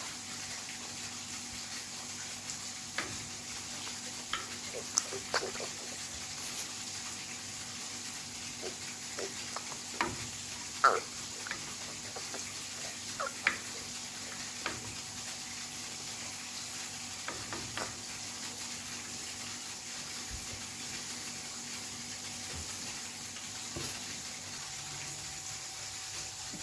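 Night-time pond ambience: a steady high hiss with a faint low hum, broken by scattered short clicks and chirps. The sharpest click comes about eleven seconds in.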